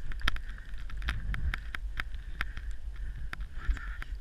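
Skiing through deep powder heard through a GoPro's housing: a steady low rumble of wind and snow with many sharp, irregular clicks and knocks, several a second.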